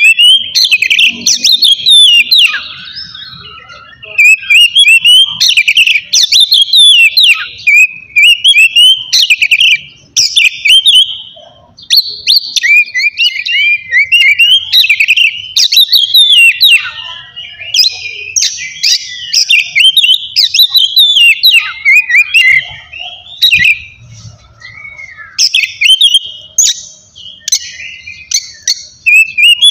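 Oriental magpie-robin (kacer) singing loudly and continuously: varied clear whistled phrases mixed with rapid chattering note runs, broken by short pauses.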